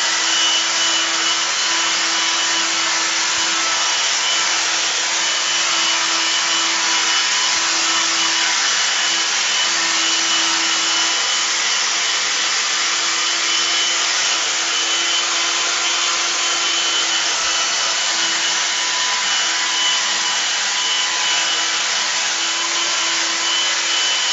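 Vacuum cleaner running steadily, with a constant motor whine over an even rushing noise, its nozzle passed over a cat's fur to groom it.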